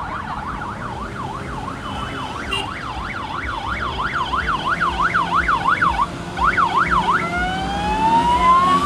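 Electronic vehicle siren on a fast yelp, warbling up and down about three times a second, then switching near the end to a slow rising wail. A second, fainter siren sounds higher up underneath.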